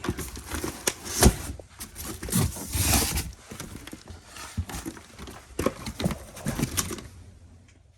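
Books and other contents being handled in a cardboard box: irregular knocks and thuds with rustling and scraping, the sharpest thud about a second in, quieter near the end.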